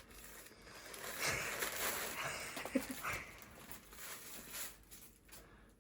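Plastic packaging rustling and crinkling in stretches as a shopping parcel is handled and opened, with a brief faint squeak-like sound about three seconds in.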